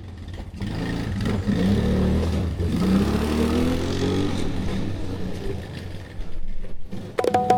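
ATV (quad bike) engine running and revving up several times, its pitch rising with each push of the throttle. About seven seconds in, music starts with sharp plucked notes.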